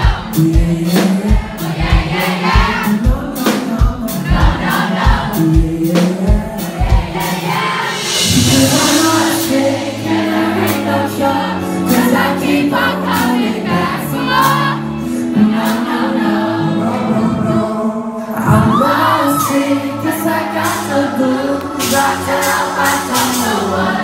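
Live pop band and singer heard from the crowd, with the kick drum pulsing about twice a second. About eight seconds in the beat drops out under held chords while the singing carries on. The drums come back in near the end.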